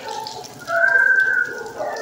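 A dog whining: one drawn-out, high, slightly wavering note about two-thirds of a second in, lasting under a second, with shorter lower whimpers around it.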